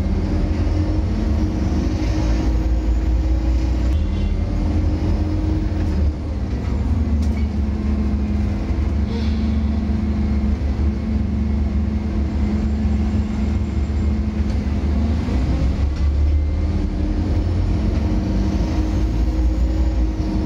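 Scania N230UD double-decker bus under way, heard from the upper deck: a steady low rumble of its five-cylinder diesel engine and running gear. The engine note rises and falls several times as the bus pulls and changes speed.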